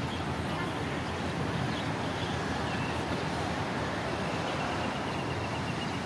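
KiHa 183 series diesel railcar train running as it moves away from the listener: a steady low rumble.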